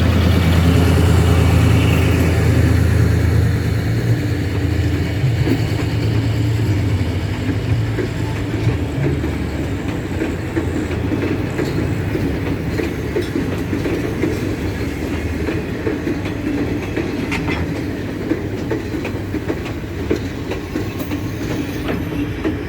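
A Sri Lanka Railways W3-class diesel locomotive, No. 638, passes hauling a ballast train. Its engine hum is strongest for the first several seconds and then fades, giving way to the wagons' wheels clicking and rattling over the rail joints.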